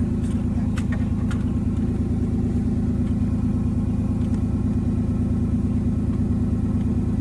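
1994 Chevrolet Silverado pickup's engine idling steadily, running again after a new key got it started. A few light clicks near the start.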